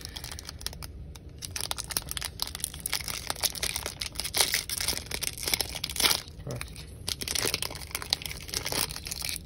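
Foil wrapper of a Panini Prizm basketball card pack being torn open and peeled back by hand: a dense run of crinkling and crackling, busiest in the middle.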